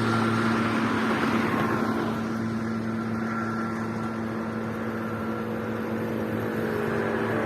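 Motorway traffic passing: a vehicle going by fades away, a steady engine hum persists under road noise, and another vehicle approaches, growing louder near the end.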